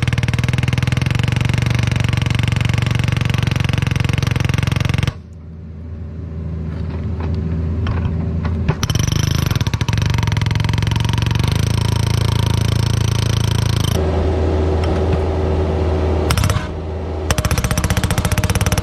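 Hydraulic hammer on a CAT 304 mini excavator breaking rock with rapid, even blows over the machine's running diesel engine. The hammering stops about five seconds in, leaving the engine, and starts again about four seconds later. It pauses briefly once more near the end.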